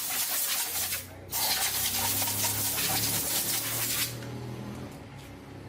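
A spray nozzle hissing in two long bursts: the first cuts off about a second in, and after a short break a second burst of about three seconds follows, with a low steady hum beneath it.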